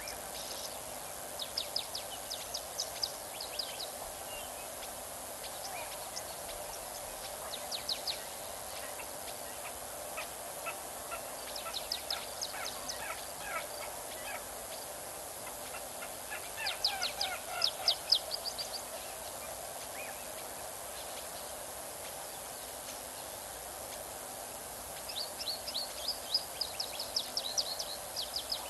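Several bouts of rapid, high-pitched chattering calls, each lasting a couple of seconds, over a steady outdoor hiss. The loudest bout comes about two-thirds of the way through.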